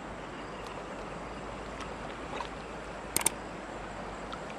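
Steady rush of a shallow rocky stream flowing around a man wading in it. A quick double click cuts in about three seconds in.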